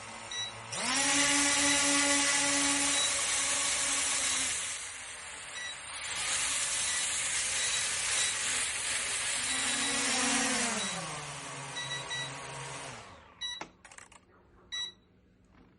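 A small drone's motors and propellers spin up to a steady high-pitched whine about a second in. The whine eases off briefly, picks up again, then drops in pitch and stops about two seconds before the end. Short faint beeps sound now and then, and a few clicks come after it stops.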